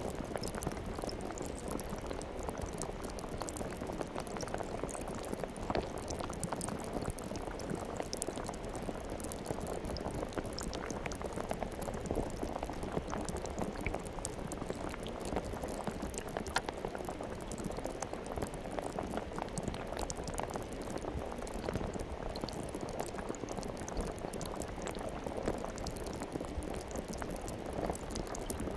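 Steady, dense crackling and bubbling of liquid without pauses.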